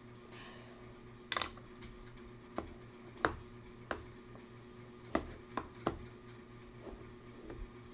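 Light, irregular clicks and taps, about nine of them, from a plastic spoon and bowl being handled while mixing fluffy slime, over a faint steady hum.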